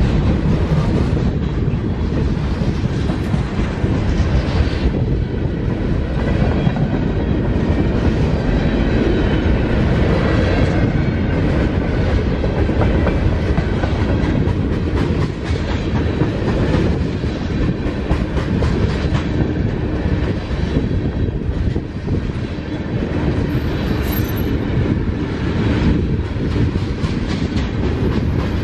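Boxcars and tank cars of a mixed freight train rolling steadily past at trackside. The wheels rumble on the rail, with a continuous clickety-clack as they cross the rail joints.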